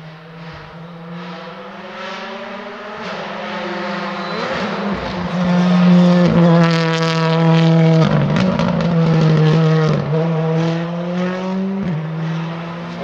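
Rally car engine at high revs, approaching and growing louder until about halfway, then staying loud, with a few short breaks in the engine note.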